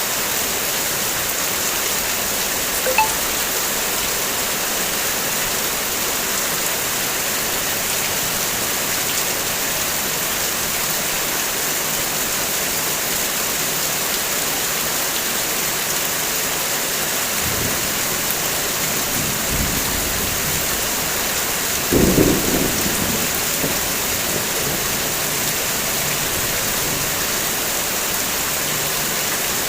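Heavy rain falling steadily on a car, an even hiss of drops. Low rumbles of thunder come in over the second half, loudest about 22 seconds in.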